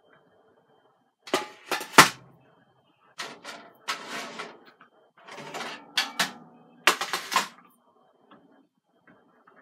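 Kitchen handling noises: four short runs of clattering knocks and scrapes from dishes and cookware being moved about. The loudest is a sharp knock about two seconds in.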